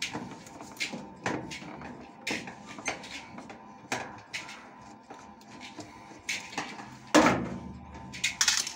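Irregular metal clinks, taps and scrapes of a screwdriver and hands against a washing machine's sheet-metal base while its earth wire and wiring are worked loose, with one louder knock about seven seconds in.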